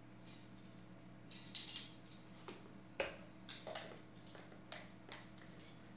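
Garlic powder being shaken from a spice jar into a metal measuring teaspoon: a string of irregular short, hissy shakes, with a few sharper clinks of the spoon.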